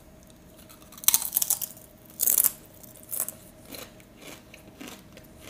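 A thick, hard hand-cooked potato crisp being bitten and chewed. A burst of crunches comes about a second in and a louder crunch at about two seconds, followed by softer, evenly spaced chewing crunches.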